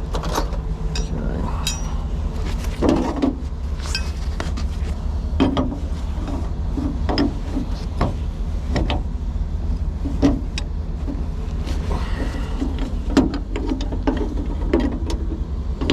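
Hand tools clicking and knocking against metal air-line fittings, in short separate strokes, over a steady low rumble.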